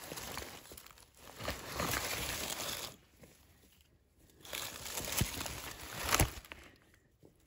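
Dry leaf litter and creek gravel rustling and crunching as they are disturbed, in three bursts of a second or two each, with small clicks of stones knocking.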